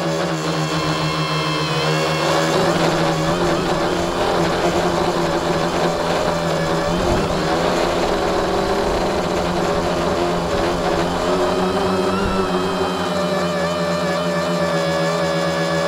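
Tricopter's three motors and propellers whining in flight, heard from the onboard camera, the pitch shifting as the throttle changes.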